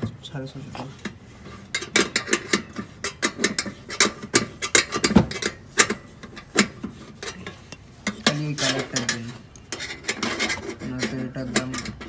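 Irregular metal clicks and clinks as a clamp-on exhaust tip and its clamp are handled on a car's tailpipe and the clamp bolt is worked with a spanner.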